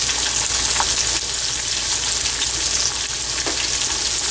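Chopped onion sizzling in hot oil in a pan, a steady frying hiss with a few light crackles.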